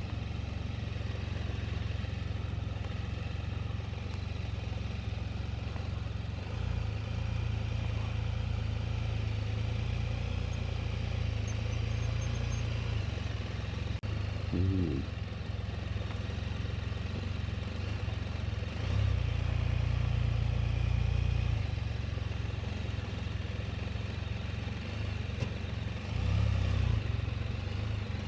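Motorcycle engine running steadily at low revs, swelling louder for a couple of seconds about two-thirds through and again near the end.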